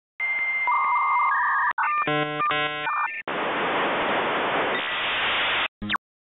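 Dial-up modem connecting: a steady high answer tone and stepped beeps, then about a second and a half of rapid warbling tones, then a harsh hiss for over two seconds, cut off by a short click near the end.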